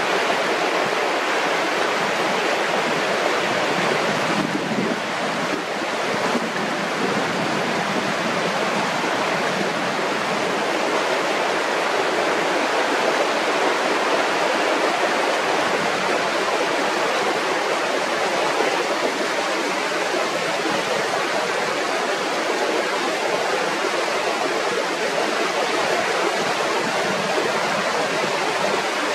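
Mountain river running fast: a steady, loud rush of water.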